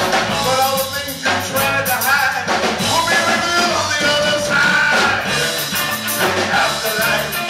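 Live band playing loud, up-tempo rock music, with a violin, drums and a man singing into a microphone.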